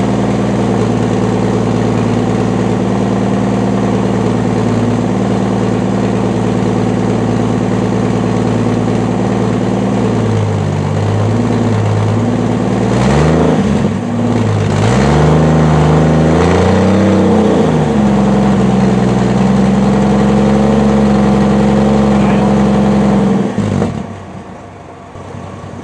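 1960 Edsel Ranger engine idling steadily, then revved up and down a few times before settling back to idle; the level drops sharply near the end. It is running on a fuel pump just remounted lower on the tank to cure fuel starvation.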